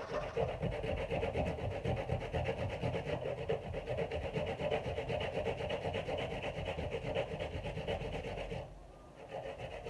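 Coconut being grated by hand on a grater: rapid, steady rasping strokes that pause briefly near the end, then start again.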